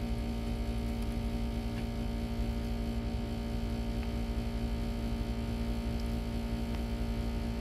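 Steady electrical hum with one constant tone and a low rumble beneath it, unchanging throughout.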